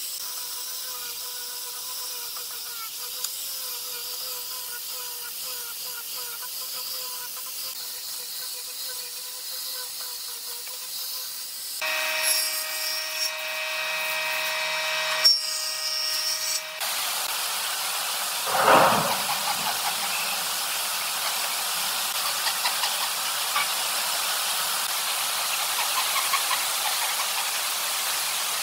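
An angle grinder with a sanding pad runs with a steady whine as it sands a curved wooden piece. About twelve seconds in, the sound changes to a table saw running for a few seconds. After a single loud thump, a hand saw cuts a long board with small repeated stroke noises.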